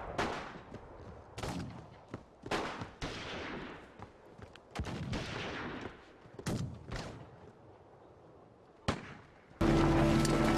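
Gunfire: single gunshots at irregular intervals, each with a trailing echo. About a second before the end, music comes in and takes over.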